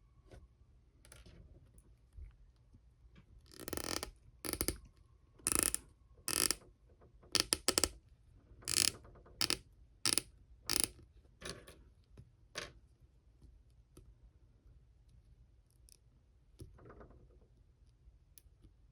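Hard plastic clicks and short rattles from a Mafex Thor action figure being handled. There are about a dozen sharp clicks over roughly nine seconds as hand and hammer accessories are swapped and the jointed limbs are posed.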